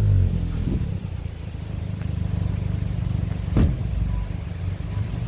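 SEAT Leon Cupra 290's turbocharged 2.0-litre four-cylinder with revs falling back at the start, then idling steadily with a low rumble. One sharp exhaust pop about three and a half seconds in.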